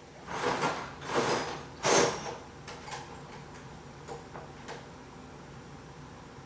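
Metal parts of an automatic transmission being worked by hand: three short scrapes in the first two seconds, the one near two seconds the loudest and sharpest, then a few light metallic clicks.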